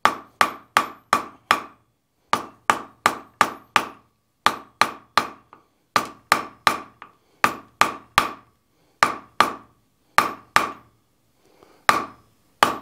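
Hand hammer striking a wrought-iron bar at welding heat on a steel anvil, in quick runs of four to six ringing blows separated by short pauses: drawing out a forge-welded bundle of four bars.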